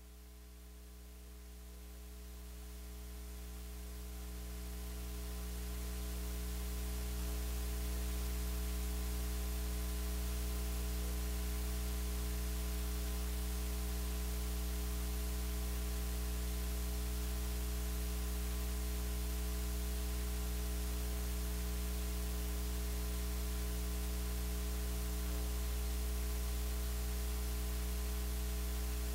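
Steady electrical mains hum with a layer of hiss, rising in level over the first several seconds and then holding steady.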